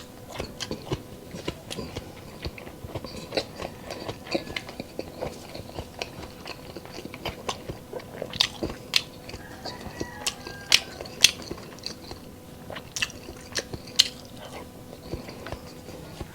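Close-miked chewing and biting of crunchy food, with many irregular sharp crunches and a few louder bites about halfway through.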